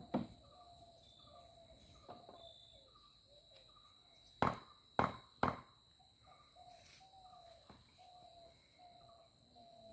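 Sharp knocks from work on wooden column shuttering: two at the start and three about half a second apart around the middle. Between them a bird repeats a short note about twice a second.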